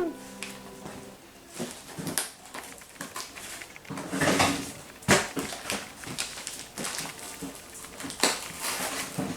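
Scissors cutting and scraping at a cardboard box: irregular snips, clicks and rustles, with a longer scrape about four seconds in and sharp clicks about five and eight seconds in.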